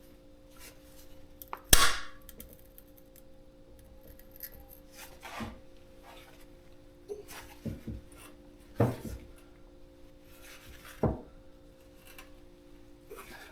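Vice grips being handled and clamped onto a broken bolt stub in an aluminium cylinder head: several separate metal clanks and knocks, the loudest about two seconds in, with some rubbing and scraping between them over a faint steady hum.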